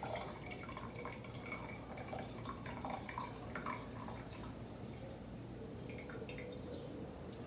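Faint trickle and irregular drips of steeped mint tea being poured from a glass measuring cup through a small mesh strainer into a teapot.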